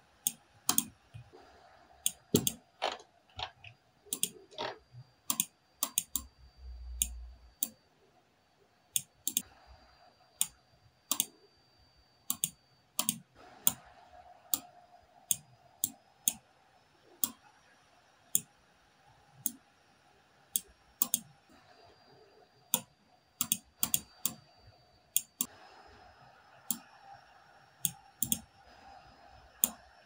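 Computer mouse clicks and laptop keyboard keystrokes: sharp, irregular clicks, about two to three a second.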